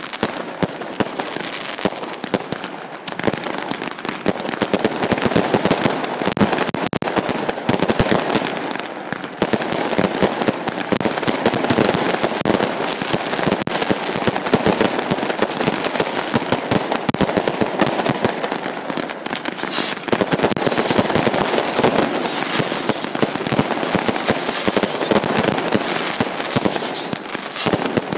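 Professional fireworks display: a dense, unbroken barrage of bangs and crackling bursts that swells and eases.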